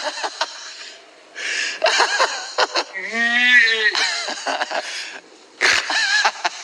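Wheezy, breathy laughter in short bursts, with a drawn-out vocal cry about three seconds in that rises and then falls in pitch.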